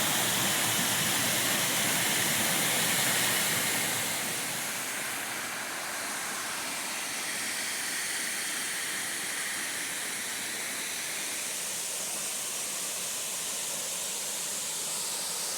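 Steady rush of a waterfall cascading over rock, a little louder for the first four seconds and then settling lower.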